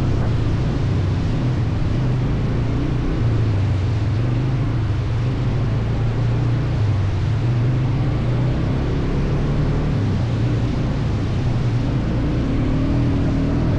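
ATV engine running steadily under way, its note rising and falling a little.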